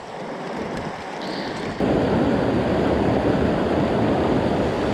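Rushing water of a mountain stream, a steady hiss that grows a little louder and then jumps up suddenly about two seconds in.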